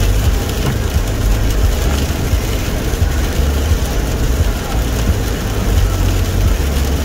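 Steady low rumble of a car driving, heard from inside the cabin, with an even hiss of tyres on a wet, icy road.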